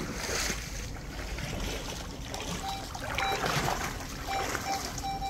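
Waders sloshing through a shallow stream while a metal detector sweeps the water. About halfway through, the detector starts giving short, steady-pitched beeps, coming more often near the end as it picks up a metal target.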